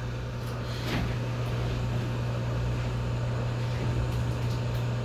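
Hot-air rework station blowing steadily, a low hum under an even airy hiss, as it heats a graphics card memory chip to melt its factory solder for removal. A faint tick about a second in.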